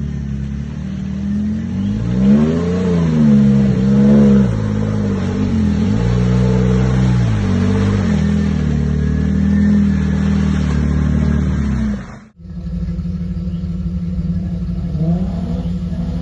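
Off-road 4x4's engine revving up and down in repeated swells under load. It breaks off abruptly about twelve seconds in and continues at a steadier pitch.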